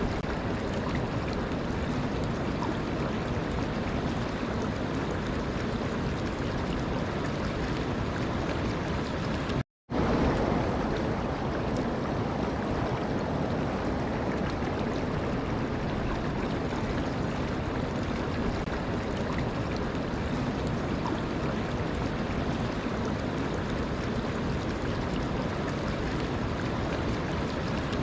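Steady rushing of running water, broken once about ten seconds in by a brief silent gap where the recording is spliced.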